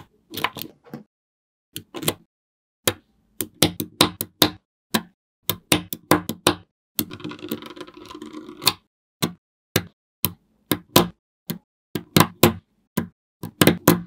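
Small magnetic balls clicking sharply as they snap onto one another, one or a few at a time at an uneven pace. A little past halfway there is a continuous rattle lasting about two seconds.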